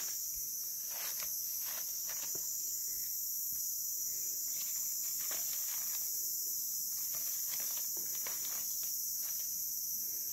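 Steady high-pitched chorus of insects, with scattered light crackles of dry leaf litter being disturbed while mushrooms are picked.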